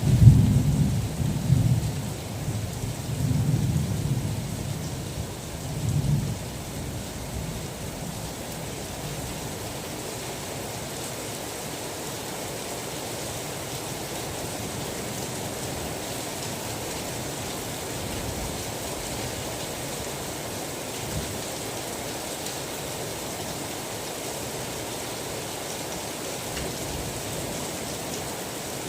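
Thunder rumbling over steady rain, in several low rolls that die away within the first six or seven seconds; after that, steady rain alone.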